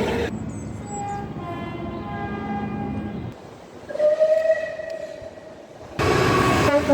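UK train horns sounding in short cut-together recordings: a horn sounding from about a second in, then a steady single-pitch blast of about two seconds. Near the end it cuts to louder train noise.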